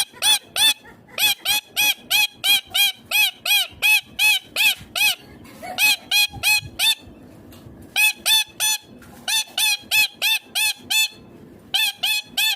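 Indian ringneck parakeet giving a rapid series of short, shrill screeching calls, about three or four a second, in bouts broken by brief pauses.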